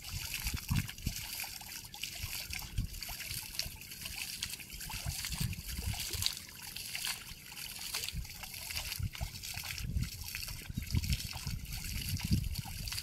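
Shallow floodwater splashing and trickling as a wet net rope is hauled in by hand, water spraying and dripping off the line. Irregular low thuds run underneath.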